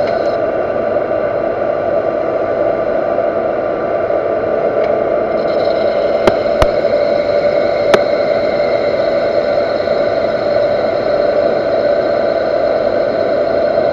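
Universal metal lathe running with a steady machine whine while it turns an angled shoulder on a metal workpiece. Three sharp clicks sound about six to eight seconds in.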